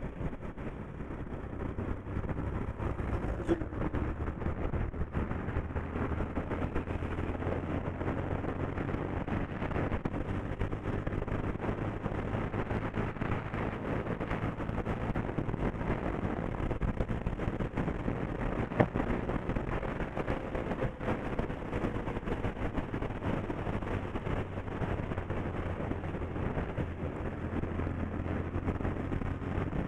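Bajaj Pulsar 125's single-cylinder engine running steadily while the motorcycle is ridden, with road and wind noise. There is a sharp click twice, once a few seconds in and once just past the middle.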